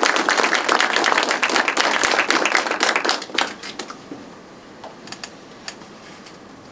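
Audience applauding at the end of a talk, the clapping dying away about three and a half seconds in and leaving only a few scattered claps.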